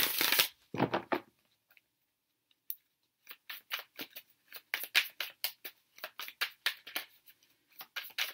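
Tarot cards being shuffled and handled: two short rustling swishes in the first second or so, then, after a short pause, a run of short crisp card snaps, about two or three a second.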